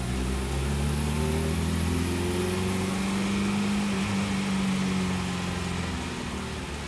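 Honda Integra DC2's B20B VTEC inline-four pulling in gear. Its pitch rises over the first couple of seconds, holds steady, then eases off and falls a little near the end.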